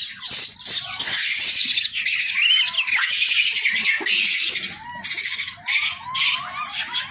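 A troop of rhesus macaques feeding, giving many short rising-and-falling calls and a higher squeal about two and a half seconds in, over a patchy rushing hiss.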